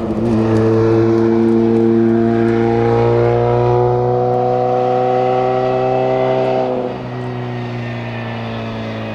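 Race car engine pulling hard up a hillclimb, its note rising slowly under load for about seven seconds. Then the pitch drops and it gets a little quieter, as at an upshift, and the engine pulls on at a steady note.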